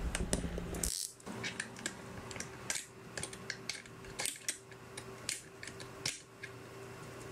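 Craft knife blade cutting and scraping support material off small 3D-printed plastic parts: irregular small clicks and snaps, with a longer scrape about a second in.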